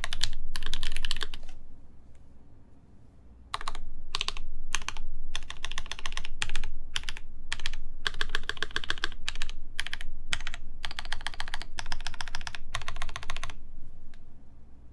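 Typing on a RAMA WORKS U80-A mechanical keyboard with a full brass plate, broken-in NovelKeys Cream linear switches lubed with Krytox 205g0, and GMK keycaps. Fast runs of keystrokes, with a pause of about two seconds near the start, then short bursts of typing that stop near the end.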